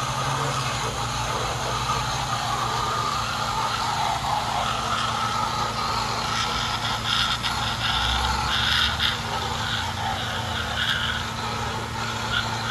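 Steady engine of a pressure washer running with a hum, while a water jet hisses with uneven louder spells in the second half.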